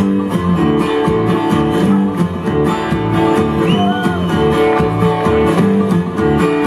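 Live bluegrass band playing the instrumental intro to a song, led by strummed acoustic guitar.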